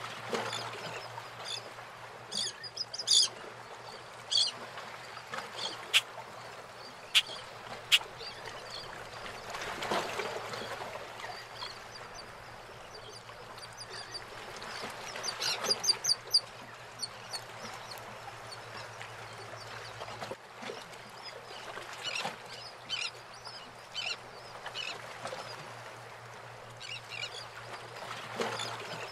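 Harbour water lapping and washing around moored fishing boats, swelling louder now and then, with birds calling in short runs of quick, high notes throughout. A few sharp knocks sound about a quarter of the way in.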